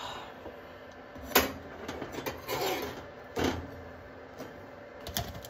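Metal tongs clicking and scraping against a toaster oven's wire rack as toasted bagel halves are lifted out. There are a few sharp clicks, the loudest about a second and a half in, with rubbing and scraping between them.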